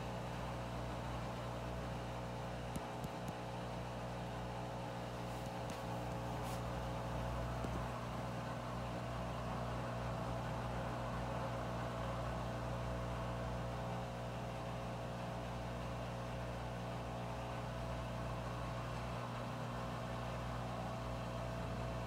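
Washing machine turning its drum slowly to even out the load, still getting ready to spin: a steady mechanical hum with a few faint clicks about three and six seconds in.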